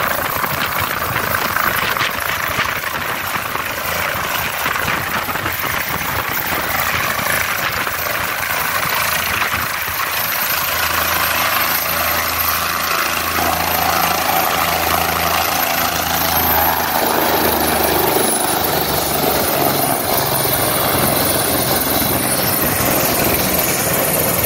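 Military helicopter on the ground with its engine running and main rotor turning, a steady loud drone. From about halfway through, the regular beat of the rotor blades comes through more clearly.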